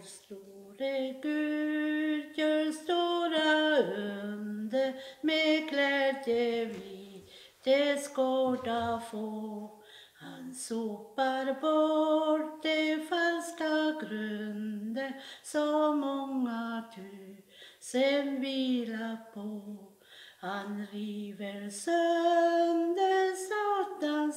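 A woman singing a Swedish hymn solo, without accompaniment, in phrases of a few seconds each with short breaks between.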